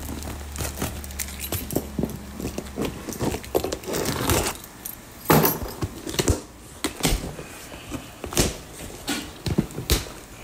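A cardboard shipping box being opened by hand: packing tape slit and torn, cardboard flaps rustling and knocking, and a bunch of keys jangling. The loudest moments are a couple of sharp tearing crackles about four and five seconds in.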